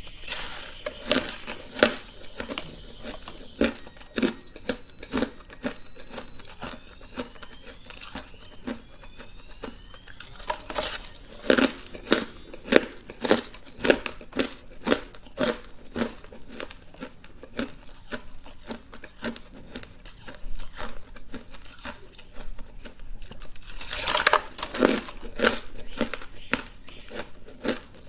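Close-up crunching and chewing of frozen chunks of coloured shaved ice: sharp crunches about twice a second, with denser runs of louder bites around ten seconds in and again near the end.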